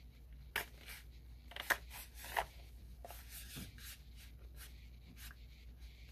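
Light hand-handling noises of small objects: scattered clicks, taps and brief rustles, busiest in the first two and a half seconds, then only a few faint ticks.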